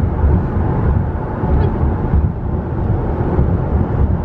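Road noise inside a car at highway speed: a steady low rumble of tyres and wind.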